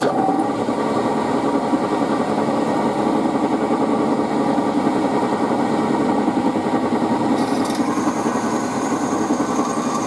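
Drill press running steadily. A little over seven seconds in, a higher, harsher sound joins as the twist bit starts cutting into the steel channel, drilling a hole to be tapped for a thread.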